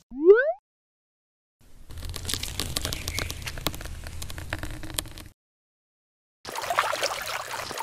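Stop-motion sound effects: a quick rising cartoon whistle, then after a pause a few seconds of dense crunching, crackling noise with many small clicks. A watery sloshing starts near the end.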